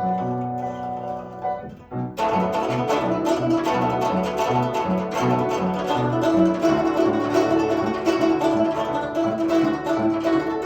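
Solo guzheng (Chinese zither) playing. A few held, ringing notes are followed about two seconds in by a sudden loud, dense passage of rapid plucked and tremolo notes.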